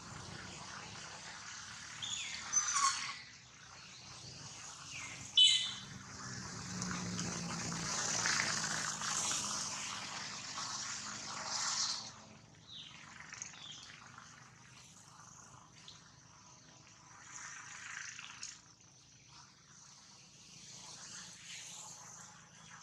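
Baby macaque giving two short, sharp high-pitched squeals, about two and a half and five and a half seconds in, falling in pitch. Fainter short high calls follow, over a thin steady high tone.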